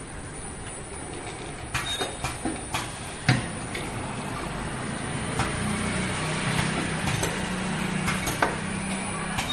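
A four-head piston bottle filling line running steadily. About two to three seconds in comes a cluster of sharp clicks and air hisses from its pneumatic cylinders, with a few more later, and a low hum grows stronger from about the middle.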